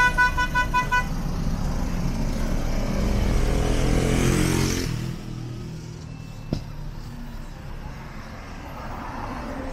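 Street traffic. A quick run of about six short beeps in the first second, like a horn or alarm. A vehicle's engine then swells loud and close and drops off suddenly about five seconds in, followed by a single sharp click and lower traffic noise.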